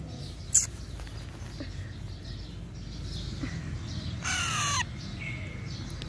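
Baby Alexandrine parakeet giving one harsh squawk of about half a second, a little after four seconds in, with a short sharp high chirp about half a second in.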